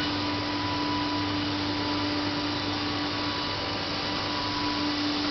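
Woodworking board-cutting machine running: a constant rushing noise with a steady motor hum and a held whine.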